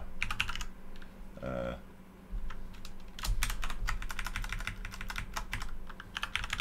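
Typing on a computer keyboard: quick runs of keystroke clicks, broken about a second in by a pause with a short hum-like vocal sound, then steady typing again.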